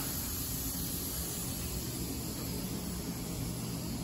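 Steady low hum with a constant hiss from running machinery, unchanging throughout.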